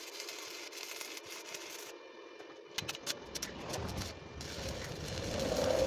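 Stick-welding arc crackling and hissing steadily, stopping about two seconds in. A few sharp clicks and a rumbling noise follow.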